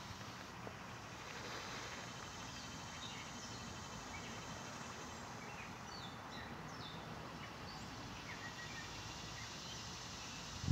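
Steady outdoor background noise with scattered short bird chirps, and a low thump at the very end.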